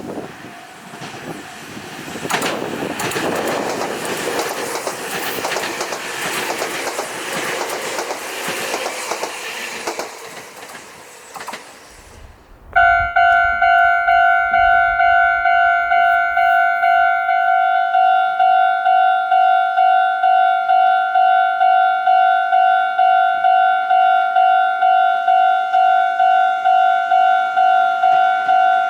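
A train running past with its wheels clattering over the rails, dying away about ten seconds in. A couple of seconds later a Japanese railroad crossing's electronic "kan-kan" alarm starts abruptly and rings in a fast, even beat of about two to three strokes a second.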